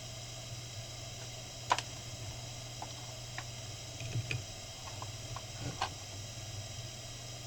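Small CNC mill machining a printed circuit board: the spindle motor runs with a steady hum and a high whine, with scattered light ticks.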